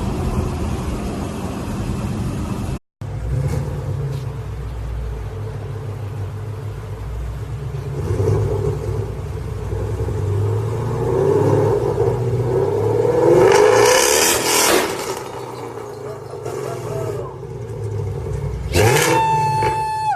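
Ford Mustang engines revving and accelerating across several cut-together clips, swelling loudest about two-thirds of the way through. A sudden loud noise with a steady high whine comes near the end.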